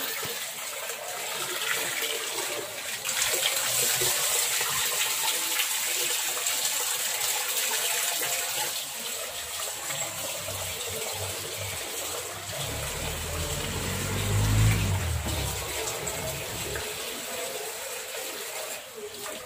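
Tap water running into a metal pot while rice is washed in it by hand, water sloshing and splashing. A brief low rumble swells a little past the middle.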